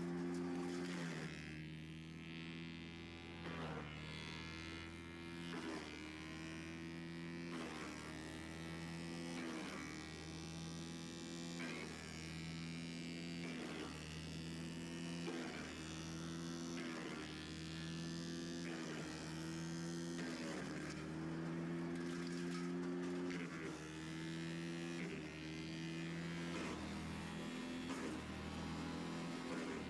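Background music: a buzzy, droning tune whose held chord changes about every two seconds on a regular beat.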